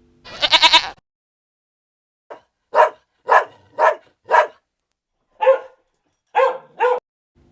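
Dog barking: a short rapid burst near the start, then separate single barks, five about half a second apart, a pause, then three more.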